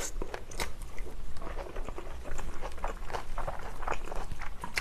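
Close-miked chewing of a mouthful of kimchi fried rice: wet mouth and lip smacks with many small quick clicks, and near the end a spoon scooping rice from the plate.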